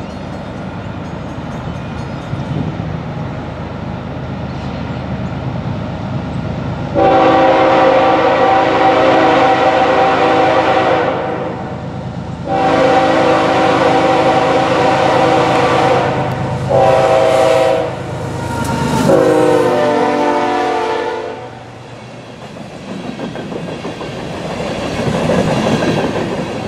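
BNSF ES44C4 locomotive with a Nathan K5HLL five-chime air horn blowing four blasts, long, long, short, long: the grade-crossing signal. The last blast drops in pitch as the locomotive passes. Before the horn the locomotive rumbles steadily on its approach, and near the end the empty coal hoppers roll by.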